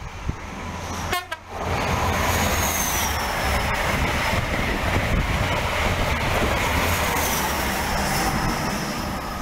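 Express passenger train passing through the station at speed. A loud rush of wheels and air sets in suddenly about a second and a half in and holds steady, with a high whine that drops in pitch twice.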